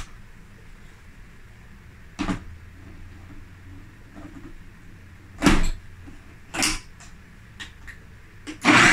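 Hard plastic clicks and knocks as a food processor's lid is locked onto its bowl of raw chicken cubes and the bowl is seated on the motor base. The food processor's motor starts loudly near the end, beginning to mince the chicken.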